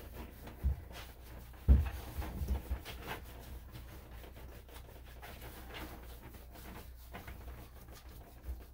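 Quiet handling sounds of a dog being groomed: faint rubbing and light clicks, with a few soft low thumps in the first few seconds, the loudest about two seconds in.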